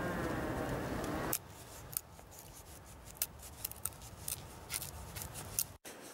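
A muffled, wavering background sound stops abruptly just over a second in. After it come scattered sharp clicks and light rustles from hands working a thin cane strip, the thong for a friction-fire saw.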